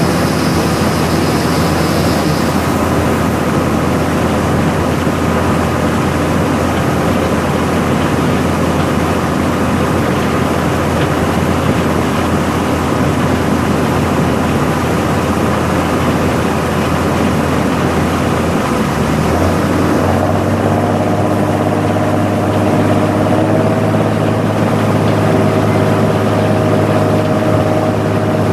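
Heavy vehicle engine running steadily under way. About two-thirds of the way through, its low drone steps up in pitch.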